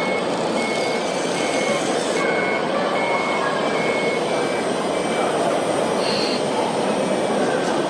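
Reversing beeper of an RC construction truck: a short high beep about every three-quarters of a second that stops about five seconds in, over a steady running noise.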